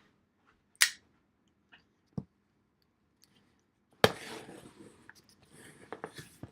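Handling noises from a cardboard shipping box being unpacked: a sharp click near the start, a dull knock, then a sudden thud about four seconds in followed by scraping and rustling with small clicks.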